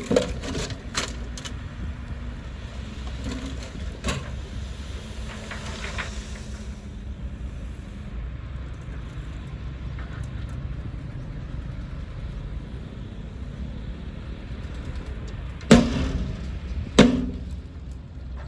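A Komatsu D20P crawler bulldozer's diesel engine running steadily, with sharp cracks of wood and brush snapping in the first few seconds and two loud cracks near the end.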